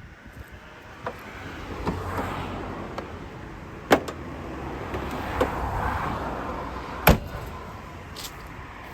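A car running, its noise swelling and easing, with a few light clicks and two sharp knocks about four and seven seconds in, the second the loudest.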